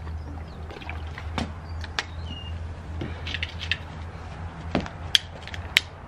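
Scattered small clicks and knocks of handling, then sharp clicks near the end as a long-nosed utility lighter's trigger is pulled to light a shoe soaked in rubbing alcohol.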